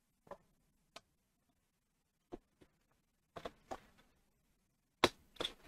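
Scattered light clicks and knocks of items being handled and set down on a workbench, with the sharpest knock about five seconds in.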